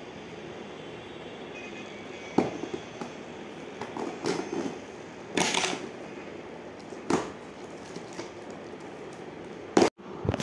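Cardboard packaging being handled and worked open: a few sharp taps and knocks on the box, with a longer scraping rustle about five and a half seconds in, over a steady faint room hum. A louder knock near the end, then the sound cuts off abruptly.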